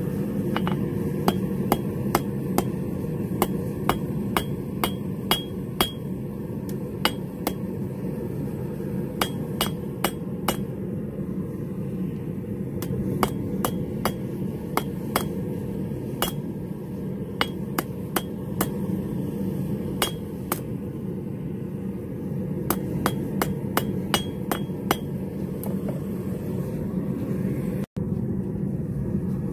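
Hand hammer striking a red-hot steel knife blank on an anvil: sharp ringing blows at about two a second, in runs broken by short pauses, over a steady low hum. The blows stop shortly before the end.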